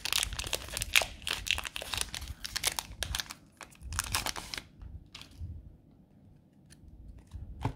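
Plastic wrapper of a trading card pack crinkling and tearing as it is cut open with scissors and handled, busy for about four and a half seconds, then a few faint clicks.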